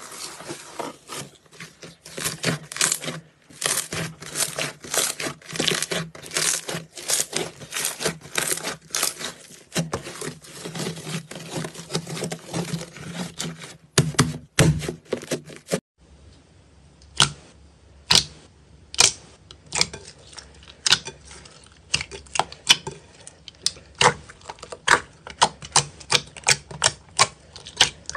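Slime being squeezed and kneaded by hand, giving rapid, dense crackling clicks and pops. About halfway through, the clicking thins out to separate sharp pops.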